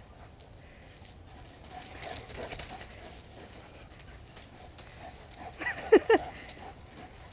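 Greyhound giving two or three quick, high yelps in close succession about six seconds in, excited yelps while running in play. Otherwise only faint rustling.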